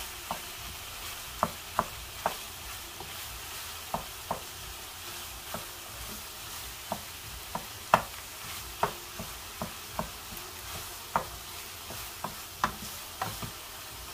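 Wooden spoon stirring minced beef and diced vegetables in a non-stick frying pan, knocking against the pan at irregular intervals, about one or two sharp knocks a second, over the steady sizzle of the mince browning.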